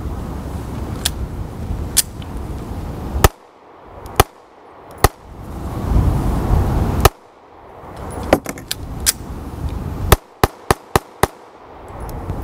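Beretta APX 9mm striker-fired pistol shooting: a dozen or so shots, mostly about a second apart, then a quick string of five near the end.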